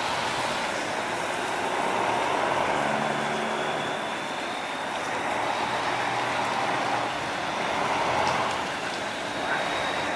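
Barge engines running steadily, a low drone under a constant rushing noise.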